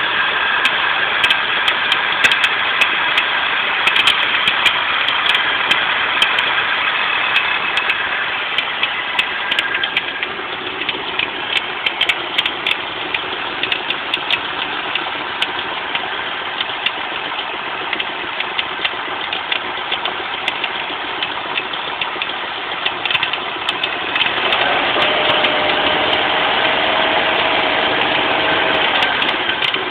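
Volvo 850 inline five-cylinder engine running, with noise from a bad accessory-belt idler pulley: a steady mechanical running sound with rapid irregular ticking. About 24 seconds in it gets louder and a steady whine joins, falling away again near the end.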